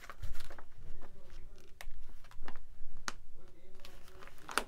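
Paper pages of a handmade junk journal being handled and turned, with soft rustles and a few sharp taps and clicks.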